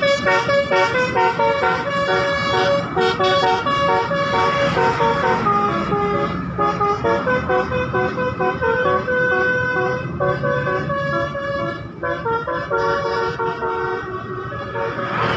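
Basuri-type telolet musical horn on a vehicle playing a tune, a quick run of held notes that step up and down in pitch.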